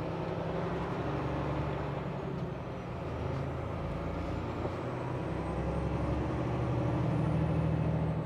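A loaded semi-truck's diesel engine running while driving: a low, steady drone that swells slightly near the end.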